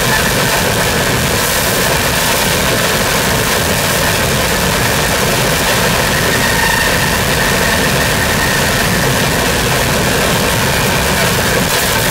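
Live harsh noise music from a tabletop rig of mixer and electronic devices: a loud, steady wall of dense distorted noise that barely changes, with a faint high held tone running through it.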